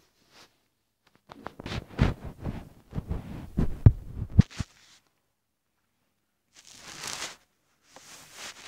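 Phone handling noise: a run of dull thumps and rubbing on the microphone as the phone is moved about and set down, lasting about three seconds from a second in, then two short rushes of noise near the end.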